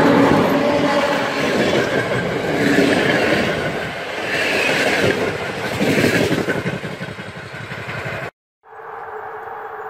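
Electric locomotive-hauled passenger train passing close by: loud rumble and rapid clatter of wheels on rails, easing off as the coaches pull away. Near the end it cuts off abruptly and a steadier, quieter hum with faint steady tones follows.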